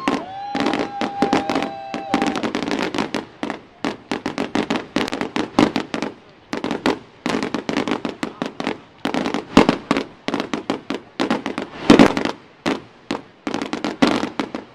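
Fireworks display going off in rapid succession: dense strings of sharp cracks and pops, with the loudest bang about twelve seconds in. A steady high whistle-like tone sounds over the cracks for about the first two seconds.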